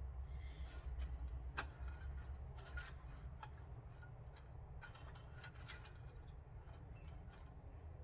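Scattered light clicks and paper rustling as small paper die-cuts are picked through and placed, over a steady low hum. The clicks thin out in the last few seconds.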